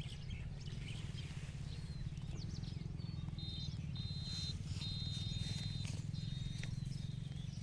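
High chirping and squeaking animal calls, with a steady high whistle-like tone that comes and goes four times in the middle, over a low steady hum.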